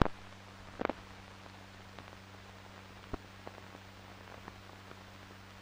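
Soundtrack noise from an old film transfer under the silent title card: a steady low hum and hiss, with a sharp pop at the start, a short crackle about a second in, and scattered faint ticks.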